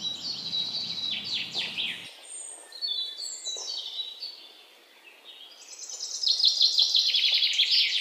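Small songbirds singing: chirps and quick down-sweeping notes, then a fast, loud trill in the second half.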